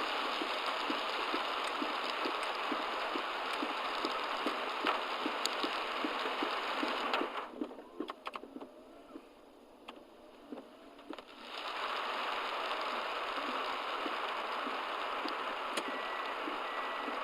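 Heavy rain hitting a moving car's roof and windshield, picked up by the dashcam inside, with a low regular ticking about three times a second beneath it. About seven seconds in the rain noise drops away for about four seconds, then comes back just as heavy.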